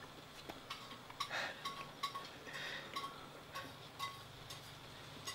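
Faint, scattered light clicks and clinks, with a couple of brief soft crunchy rustles.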